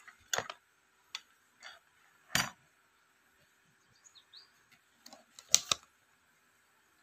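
Paper and packaging crinkling and rustling as a leaflet and an instruction manual are handled in a cardboard box, in several short bursts, the loudest a little past halfway. A faint bird chirps twice about four seconds in.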